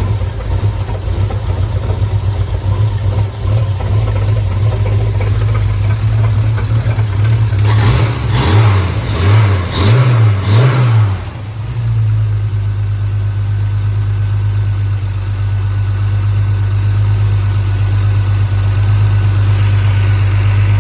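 Triumph TR6 straight-six engine idling, revved three times in quick succession about eight seconds in, then settling back to a steady idle.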